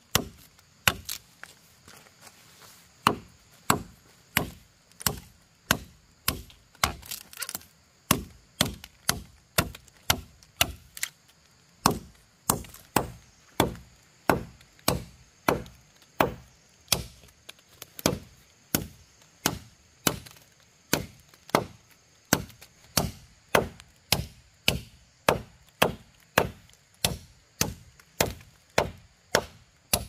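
Wood being chopped with a blade in a steady rhythm of sharp blows, about two a second.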